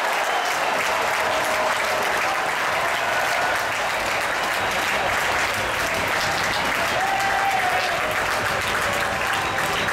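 Large arena crowd applauding a point just won, with dense clapping and voices and shouts mixed in.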